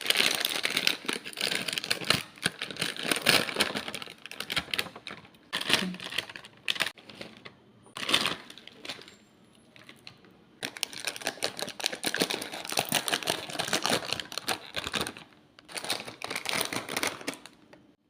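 Dense crackling and crinkling from a snack and its packaging being handled. The crackling comes in long spells, with a few separate sharp crackles in between.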